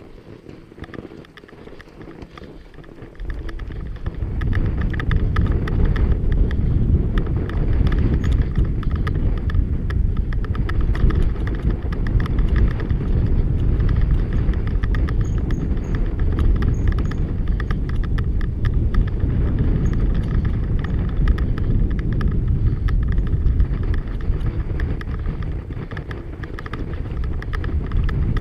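Riding noise from a fat-tyre bike rolling fast over packed snow, picked up by the bike-mounted camera: a loud, steady low rumble of tyres and air buffeting the microphone, which swells about three seconds in as the bike picks up speed, with light crunching clicks over it.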